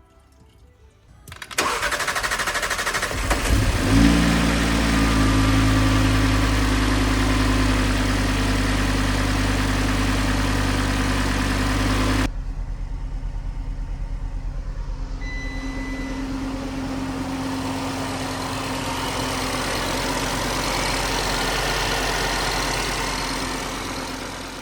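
Audi RS3's 2.5-litre five-cylinder petrol engine cranked by the starter for about two seconds, then catching and running steadily: its first start after the timing chain repair. About twelve seconds in the sound cuts suddenly to a quieter stretch of the engine running.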